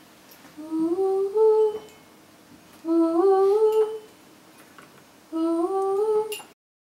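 A high voice hums the same short phrase three times, each a rising run of a few stepped notes lasting about a second, with pauses between. The sound cuts off suddenly near the end.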